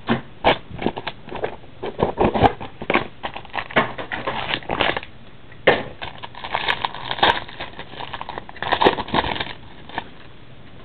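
Hands opening a box of 2008 Upper Deck Premier Football cards: cardboard and packaging crinkling and crackling, with many short irregular clicks and rustles that die down near the end.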